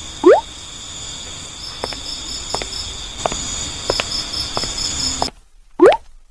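Night ambience of crickets chirping steadily, cut off abruptly about five seconds in. Two loud, quick rising cartoon sound effects, one just after the start and one near the end, with a few light clicks between.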